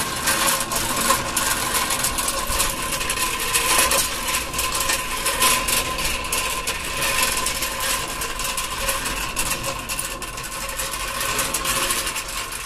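Charcoal forge fire crackling and spitting sparks under a steady air blast, with the forge blower running at a constant whine.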